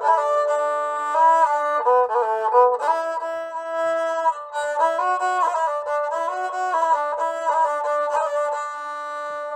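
Sarinda, a bowed folk fiddle with gut strings, playing a melody of held notes and quick ornamented runs.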